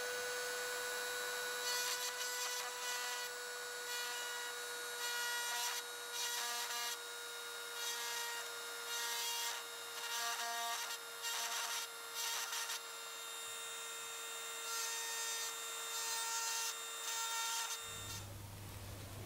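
Handheld rotary tool running with a steady high whine while its fine engraving bit scratches lines into a thin metal lure blade, the scratching coming in short repeated strokes over the motor. The tool stops near the end.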